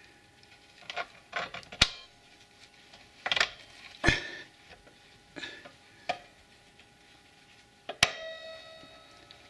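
Metal clinks and clanks as new drum-brake shoes are worked into place on a quad bike's rear brake backing plate, spaced irregularly. A sharper clank near the end leaves a metallic ring that lasts about a second.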